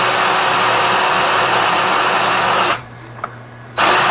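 Flexshaft drain-cleaning machine spinning its cable inside a blocked kitchen sink drain line, a steady high-pitched motor whine. It runs for under three seconds, stops for about a second, then starts again.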